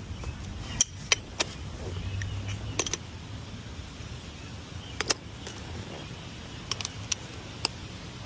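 Scattered sharp metallic clicks and clinks, a dozen or so at uneven intervals, from small metal tools or parts being handled, over a faint low hum.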